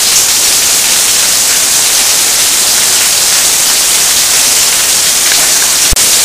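Heavy downpour: a loud, steady hiss of rain, with water pouring in sheets off a roof edge. A single sharp click comes near the end.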